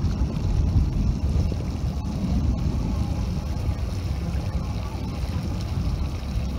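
Honda BF200 V6 four-stroke outboard running steadily with the boat under way, mixed with water rushing past and wind buffeting the microphone.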